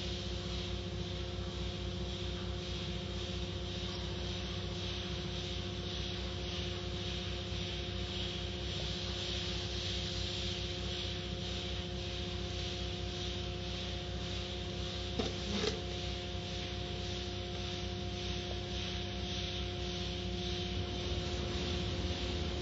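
Automatic tunnel car wash running: cloth washer curtains and brushes working over a car under water and foam spray, with a steady hiss and a machinery hum holding a few steady tones. A brief knock comes about two-thirds of the way through.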